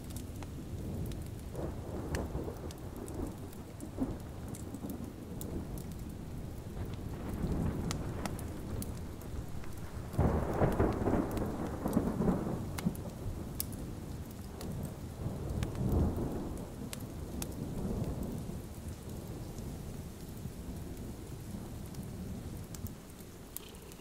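Steady rain with rolling thunder. The thunder swells several times, its loudest and longest rumble about ten seconds in, with another peal around sixteen seconds.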